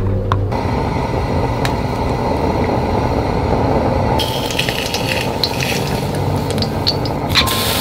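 Steady rushing of a lit gas burner under a frying pan. About halfway through, light crackling and sizzling join in as pressed garlic drops into the hot olive oil.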